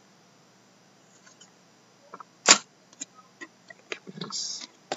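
Hockey trading cards being handled by hand: one sharp tap or click about halfway through, then several lighter clicks and a brief rustle of card sliding on card near the end.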